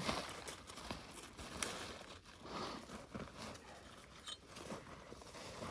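Irregular crunching and crackling of boots moving through snow and dry brush.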